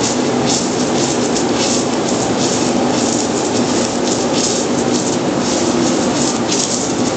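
Submerged arc welding run: a steady, loud hum and rush with irregular crackling from the arc burning hidden beneath the granular flux.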